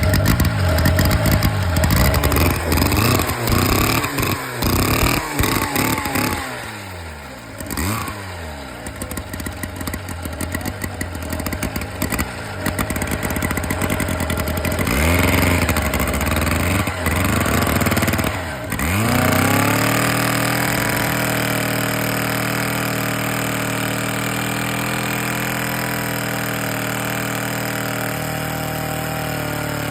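Vintage Disston-Mercury G10 chainsaw's two-stroke engine revved up and down several times, then settling to a steady idle about twenty seconds in.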